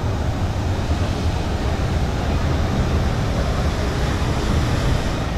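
Rushing water of a river rapids raft ride: a steady noise with a heavy low rumble of wind buffeting the microphone.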